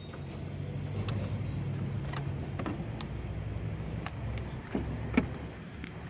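Car engine running steadily, a low even hum, with a few sharp clicks about a second apart over it.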